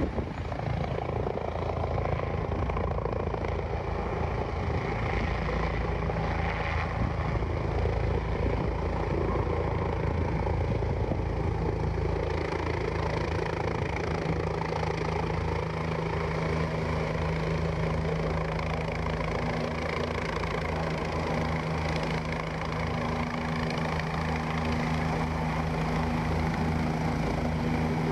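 Police helicopter flying in low and descending to land, its rotors and turbine making a loud, steady beating noise. A humming tone in the rotor noise grows stronger about halfway through as it comes close.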